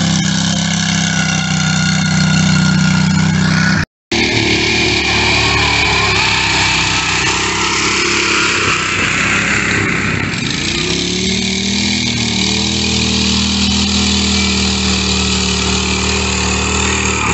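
Riding lawn mower engines running hard while churning through mud. The sound cuts out briefly about four seconds in, and about ten seconds in the engine pitch sags and then climbs back up.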